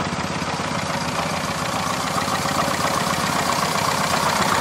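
Miniature steam wagon running as it drives past, its engine beating in a rapid, even rhythm and growing a little louder as it comes closer.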